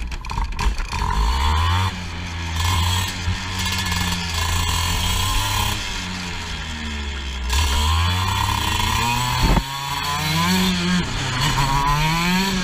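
Racing kart's two-stroke engine heard onboard, revving up along the straights and dropping off into the corners several times. A single thump about three-quarters of the way through.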